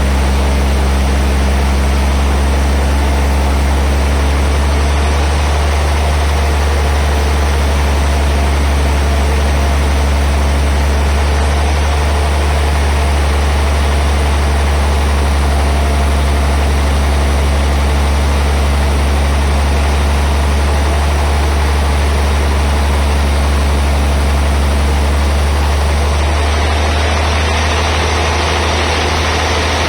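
Sawmill band saw machinery running steadily, a deep constant hum under a wash of noise. The higher noise thins slightly near the end.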